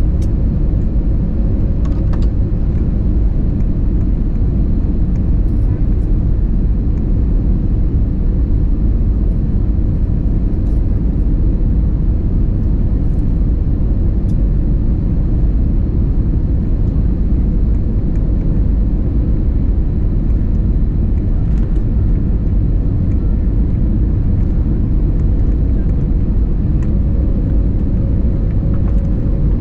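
Steady low rumble of engine and airflow noise heard inside the cabin of an Airbus A320neo descending on final approach.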